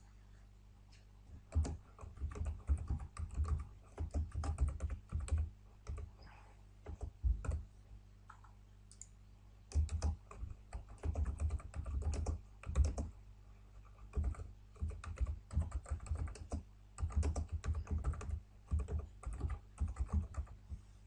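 Typing on a computer keyboard in several quick runs of key clicks, separated by short pauses.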